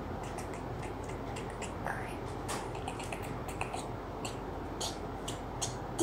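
Light handling noises of a paper craft: irregular soft clicks and rustles as a paper circle is handled and pressed down onto a glued paper cutout, over a steady low hum.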